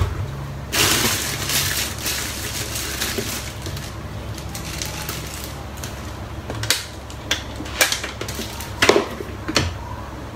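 Kitchenware being handled: a blender jar and its lid moved and set down, with rustling and clatter early on and several separate sharp knocks in the second half.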